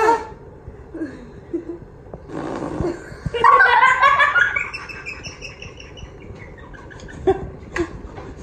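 Children laughing: a loud burst of high-pitched laughter about three seconds in that trails off into giggles.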